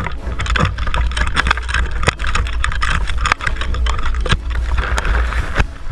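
Tall grass swishing and brushing against a rifle-mounted action camera as the player pushes quickly through it, over heavy handling and wind rumble. A scatter of sharp knocks runs through it.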